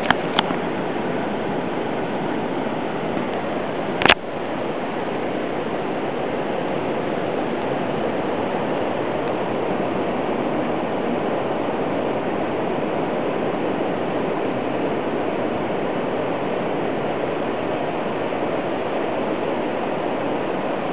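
Steady rush of ocean surf breaking on the beach, with one sharp click about four seconds in.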